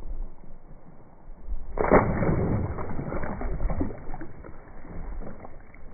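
Footsteps of Columbia Newton Ridge Plus II hiking boots on a gravelly dirt trail. The crunching and scuffing gets loud and dense about two seconds in, then eases off.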